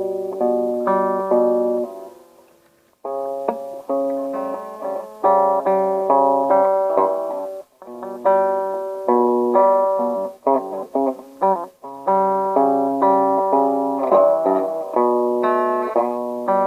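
Guitar playing a Lydian-mode improvisation in G, tuned down about a whole step: single plucked notes and chords that ring and die away, with short breaks about two and a half and eight seconds in.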